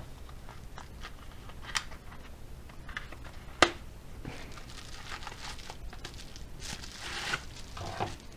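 Packaging being opened by hand: crinkling and rustling with scattered light clicks, and one sharper click about three and a half seconds in.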